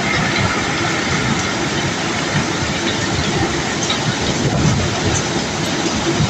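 Cobblestones being unloaded from a barge: a continuous dense clatter and rumble of many stones knocking against each other and against metal, with no let-up.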